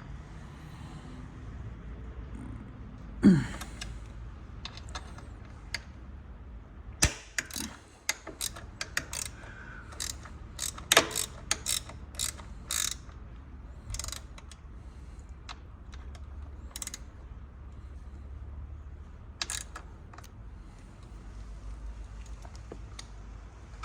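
Hand tools working a threadlocked bolt on a Kawasaki ZX10R's rear hugger: scattered ratchet-like clicks and metal clinks, busiest in the middle, with one short squeak falling in pitch about three seconds in.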